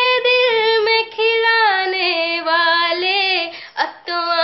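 A woman singing a Hindi ghazal unaccompanied, drawing out long sung notes with wavering, ornamented pitch. There is a brief break near the end before she carries on.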